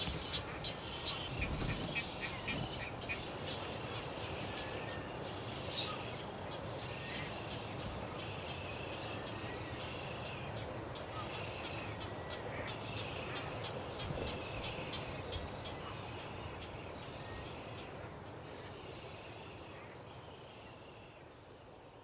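Birds of a nesting colony calling repeatedly, many short calls over a steady background hiss; the sound fades away gradually over the last several seconds.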